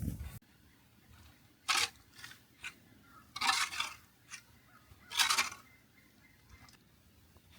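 Snow shovel scraping and crunching through snow in a few separate strokes, the longest about three and a half and five seconds in.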